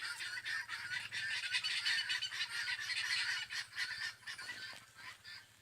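Helmeted guinea fowl calling: a fast, harsh chatter of repeated calls that dies down near the end.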